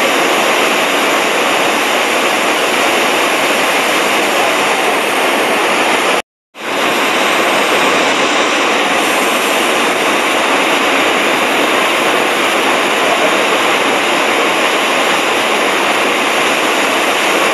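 Iguazu Falls: a steady, loud rush of falling water, broken by a brief silence about six seconds in before the rush returns.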